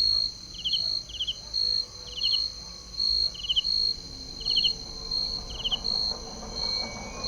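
Crickets calling at night: a high, even pulsing call about one and a half times a second, with a second insect's short trilled chirp about once a second. A faint low rumble grows near the end.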